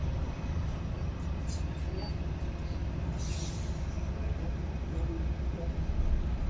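Low steady rumble of road traffic, with a short hiss about three seconds in.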